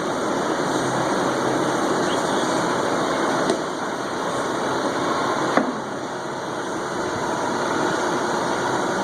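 Steady, even rushing noise, like a loud background hum or hiss, with two short sharp clicks a couple of seconds apart in the middle.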